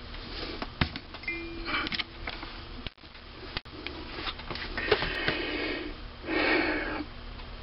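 Handling noises at a small metal lathe: scattered light clicks and short scratchy rustles as a freshly parted-off workpiece is picked out from among the metal chips, over a faint steady low hum.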